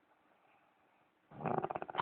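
A man snoring: a quiet pause between breaths, then about a second and a half in a loud, fluttering snore starts and carries on.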